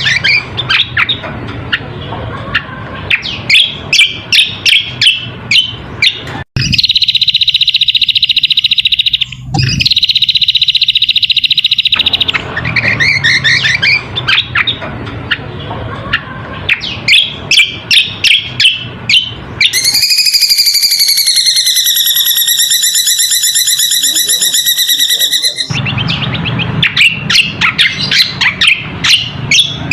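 Cucak kombo (a white-eye) song from a bird-lure recording: fast, busy chirping and twittering. It is broken by two long buzzy trills about a quarter of the way in, and by a long wavering buzz with rich overtones about two-thirds through.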